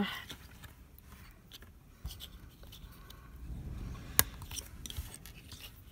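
Small LEGO minifigure plastic parts handled and snapped together by hand: soft rubbing with a few light clicks, and one sharp click about four seconds in as a sword is pressed into the figure's hand.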